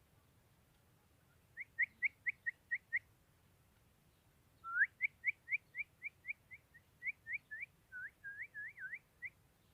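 Bulbul calling: a run of about seven quick, upward-slurred whistled notes, then after a short pause a longer run of similar notes, several near the end sweeping up from lower.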